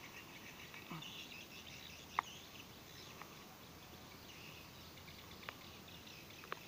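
Faint outdoor background of insects and birds chirping, with a few short sharp clicks from hands working a plastic irrigation pipe fitting, the loudest about two seconds in and two more near the end.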